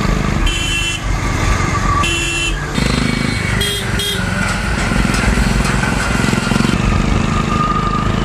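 Motorcycle engine running steadily under way, with vehicle horns honking twice in the first three seconds and two short, higher beeps about four seconds in.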